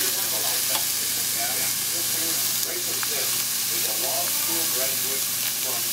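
Broccoli florets sizzling in oil in a stainless steel pan, a steady hiss, with a few light clicks of a spatula against the pan.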